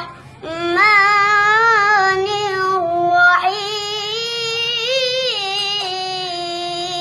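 A young girl reciting the Quran in the melodic tilawah style, drawing out long ornamented notes. She takes a quick breath at the start, then sings two long phrases.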